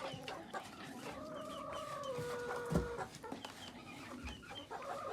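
A flock of chickens settling on the roost, clucking and making long drawn-out calls with short chirps in between. There is a single soft thump about halfway through.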